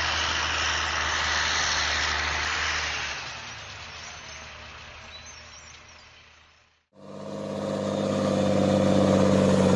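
Heavy Caterpillar diesel machinery working, a loud engine sound with a low steady drone that fades away over the middle seconds. After a sudden cut about seven seconds in, a different engine runs with a strong steady hum that grows louder.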